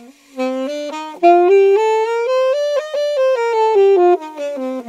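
Alto saxophone playing a quick stepwise scale up about an octave and back down, played against the horn's fingering: octave key held down on the low notes and left off on the high ones, so the embouchure alone keeps each pitch. It is a control exercise for tone and pitch, and it sounds pretty awful.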